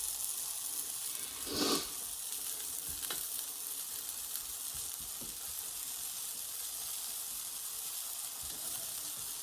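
Banana-and-oat pancakes frying in oil in a frying pan, sizzling steadily, with one brief louder noise about a second and a half in.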